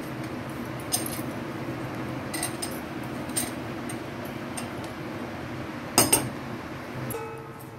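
Stainless-steel murukku press cylinder being handled: a few light metallic clinks, then one sharp clunk about six seconds in as the steel cylinder is set down on the stone counter. A steady low hum runs underneath.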